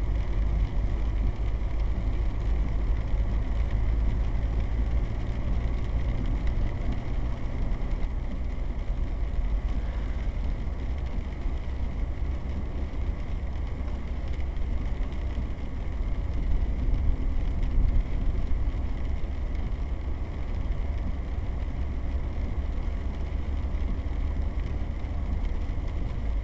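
Steady road noise inside a moving car on a rain-soaked road: a low rumble from engine and tyres with an even hiss of tyres on wet pavement.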